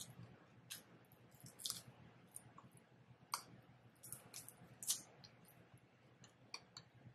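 Faint, wet mouth clicks and smacks of someone chewing barbecue: about a dozen short, sharp clicks spread irregularly, the loudest just past 3 seconds and near 5 seconds.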